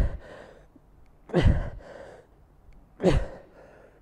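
A man's forceful exhaled breaths, each with a short grunt falling in pitch, about one every second and a half. It is effort breathing in time with the reps of bent-over dumbbell rows against resistance bands.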